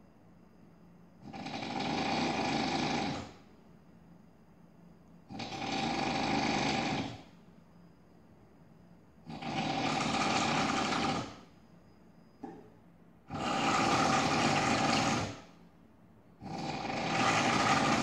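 A sleeping person snoring heavily: five long, rough snores of about two seconds each, coming roughly every four seconds.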